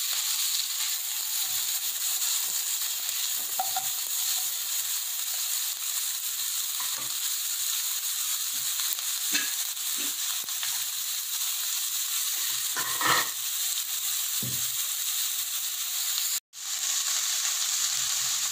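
Chopped onions frying in hot oil in a nonstick kadai: a steady sizzle, with now and then a short tap or scrape as a slotted spatula stirs them. The sound drops out for an instant near the end.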